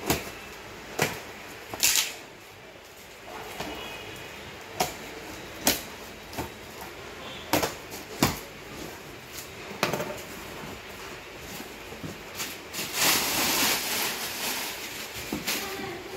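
A cardboard shipping box being opened by hand: packing tape pulled off and the cardboard flaps handled. There is a series of sharp knocks and crackles, and a longer rasping, tearing stretch about 13 seconds in.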